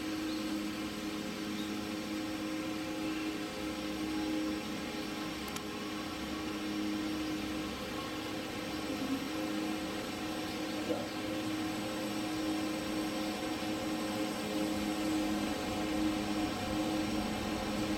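A steady machine hum with a few low, even tones and no breaks.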